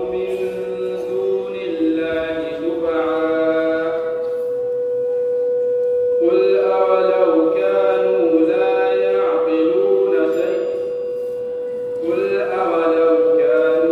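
A young man reciting the Quran in Arabic in the melodic, drawn-out tajweed style into a microphone. He holds long phrases and pauses for breath about four seconds in and again about ten seconds in, over a steady single tone that runs underneath.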